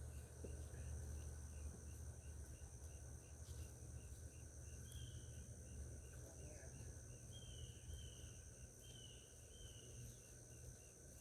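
Faint insect chorus: a steady high-pitched trill with a chirp repeating about three times a second. From about halfway in, a bird gives several short, falling calls.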